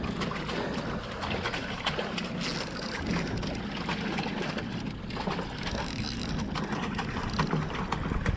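Sound on an offshore fishing boat: steady wind on the microphone and water against the hull, with a low steady hum and scattered light clicks and knocks.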